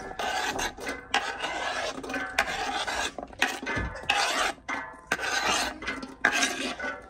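A spoon scraping diced carrots across a cutting board into a stainless steel stock pot: repeated rasping strokes, about one a second.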